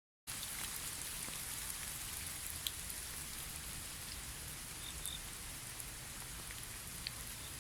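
Steady rain falling: an even hiss with scattered drops ticking close by.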